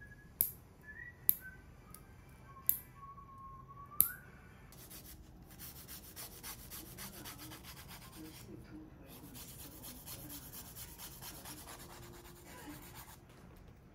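Nail clipper snipping fingernails four times, sharp single clicks about a second apart. Then a nail file rasping quickly back and forth across the nails in fast, even strokes, with a brief pause in the middle.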